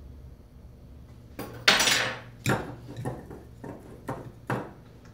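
Small metal tools clinking and knocking on the workbench: about six short clatters over three seconds, the first and loudest about a second and a half in, the rest lighter, over a faint steady hum.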